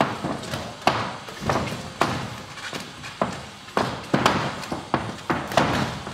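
Boxing sparring: punches landing on gloves and headgear and feet stepping on the ring canvas, about a dozen sharp thuds at irregular spacing, each with a short echo.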